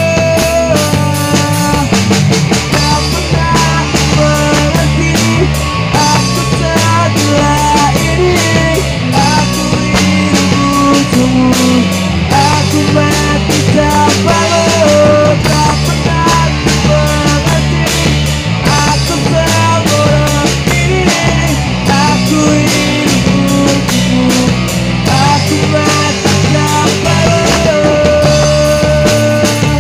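Rock band playing an instrumental passage: electric bass and drum kit with a melodic lead line over them, loud and continuous.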